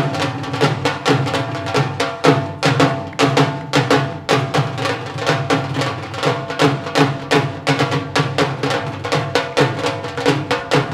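Live band playing an instrumental passage: a drum kit keeps a quick, steady beat over sustained held notes and bass.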